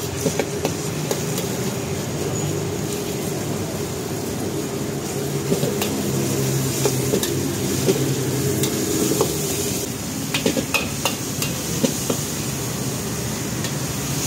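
Minced meat sizzling in a steel wok as a metal ladle stirs and scrapes it, with irregular clinks and knocks of the ladle against the wok, more of them in the second half. A steady low rumble runs underneath.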